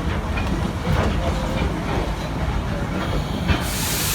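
Train rolling along the track: a steady low rumble with scattered faint clicks, and a burst of hiss near the end.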